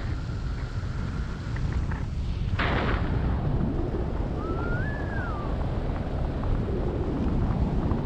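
Wind buffeting an action camera's microphone in paraglider flight, a steady low rumble, with a sudden brief rush of air about two and a half seconds in. Around the middle a short whistle-like tone rises and falls once.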